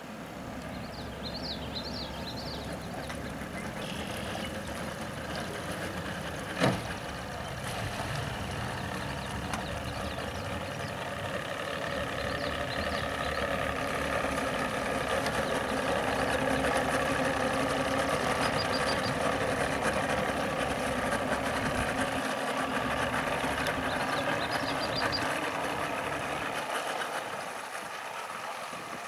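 A 150 hp outboard motor on a Bayliner Rendezvous deck boat runs steadily, growing louder toward the middle and easing near the end. A single sharp click comes about seven seconds in.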